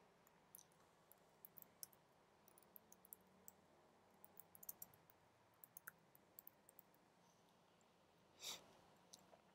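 Very faint computer keyboard typing: scattered light key clicks, with one slightly louder click about a second before the end.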